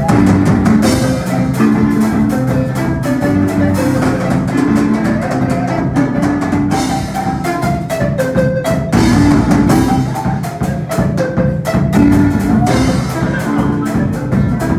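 Zimbabwean marimba band playing a fast dance tune: several wooden-keyed marimbas struck with mallets in quick, even strokes, with deep bass-marimba notes underneath the higher melody.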